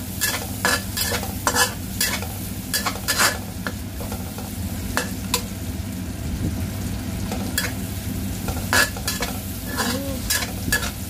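Metal spatula scraping and clicking against a honeycomb stainless steel wok in irregular strokes as chilies, shallots and garlic are stir-fried in a little oil, over a steady sizzle.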